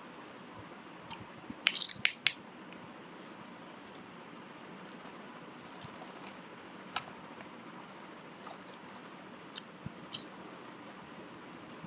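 Scattered sharp clicks and taps over a low steady hiss, with a loud cluster about two seconds in and another near the end.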